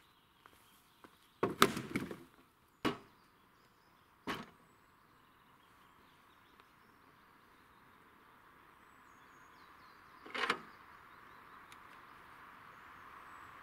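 Knocks of timber and metal as a sawn log and the saw carriage are shifted on an aluminium chainsaw-mill frame. A quick cluster of knocks about two seconds in is the loudest, with single knocks near three and four seconds in and another about ten seconds in.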